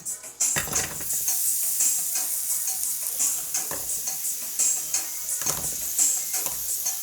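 Food sizzling in a hot pan, starting about half a second in, while it is stirred and pushed around with a utensil in repeated scraping strokes.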